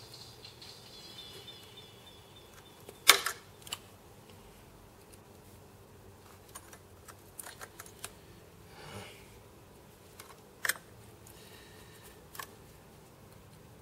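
Scattered sharp clicks and taps from a screwdriver and small parts being handled in an open PTZ camera housing. The loudest click comes about three seconds in, with a few small ticks later and another click near the end.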